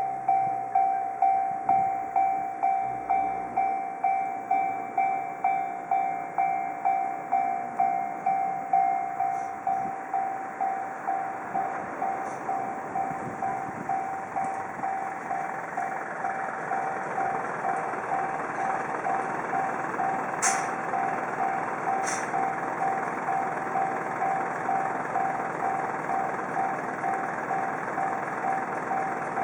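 Japanese railroad crossing warning bell ringing its repeating ding-ding, about two strikes a second. The beats blur into a more even ringing in the second half. Two short sharp clicks sound about two-thirds of the way through.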